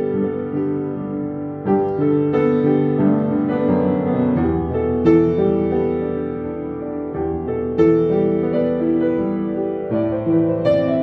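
Piano played with both hands: a melody over sustained chords and changing bass notes, at a slow, even pace.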